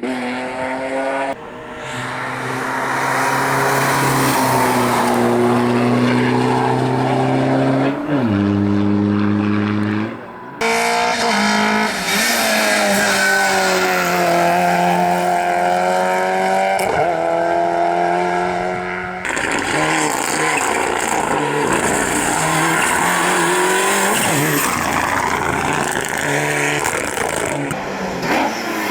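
Rally cars driven flat out on a special stage, their engines revving hard, the pitch climbing and dropping with throttle and gear changes. The sound changes abruptly twice, about a third and about two thirds of the way through, as it switches from one car to another.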